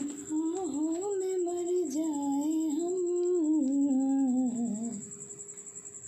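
A voice humming a slow, wavering tune, which sags in pitch and stops about five seconds in. A faint steady high-pitched whine sounds underneath.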